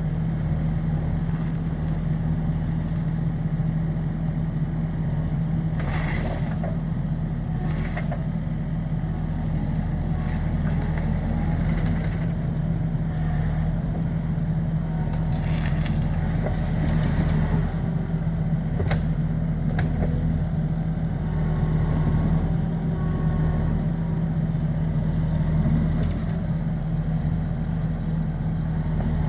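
Skid steer engine running at a steady speed throughout, with brief harsher noises about six and eight seconds in and again around sixteen seconds.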